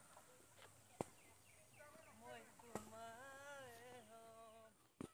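Faint, distant voices calling out, including one long drawn-out call about three seconds in, with two sharp clicks, one about a second in and one near the middle.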